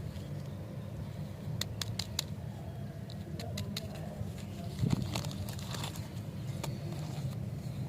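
Candy packaging being handled: scattered light clicks and crinkles of plastic wrappers over a low steady hum.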